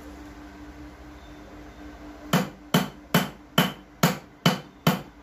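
A Type-C charger on a tile floor being struck again and again by a hand-held object. The blows start about two seconds in and come at about two a second, seven sharp hits, each with a brief ring.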